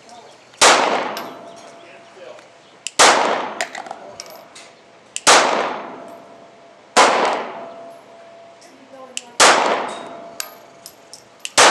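Six shots from a 9mm Glock 19 pistol, fired slowly at about two-second intervals. Each shot is followed by a ringing, echoing tail.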